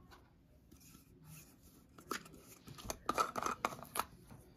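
Plastic screw-on lid of a paint jar being twisted open by hand: a run of quick scraping clicks starting about two seconds in and lasting about two seconds.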